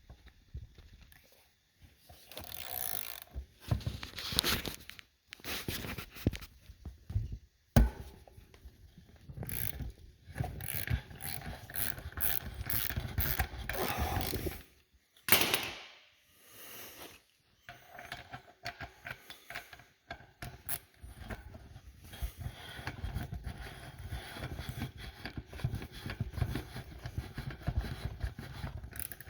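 Hand tools and metal parts clanking, clicking and scraping as a motorcycle's front wheel is worked off, with a sharp knock about eight seconds in and another loud one about fifteen seconds in.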